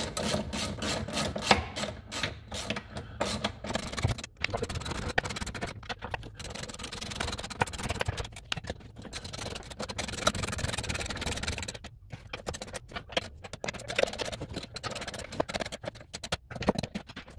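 Hand socket ratchet clicking in quick irregular runs on the bolts of a jet boat's pump housing, mixed with metal scraping and handling of the parts.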